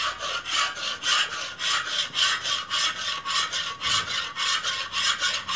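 Metal spatula scraping heavy rust off a steel cooking disc in quick back-and-forth strokes, about four a second.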